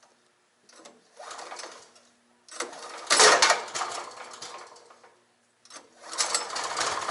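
Haige 15 hp wood chipper shredding cedar and cypress branches: a crackling, grinding noise that comes in three bursts with short quiet gaps between them. The loudest burst is about three seconds in.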